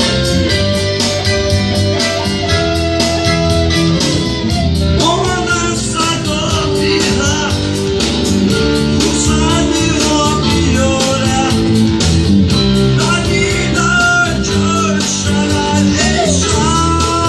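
Live band music led by guitar, playing over a steady beat.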